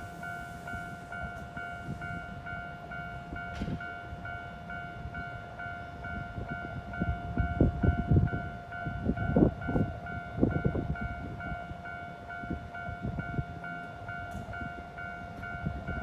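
Railway level crossing's electronic warning bell ringing steadily at about two dings a second. Bursts of low rumbling rise in the middle.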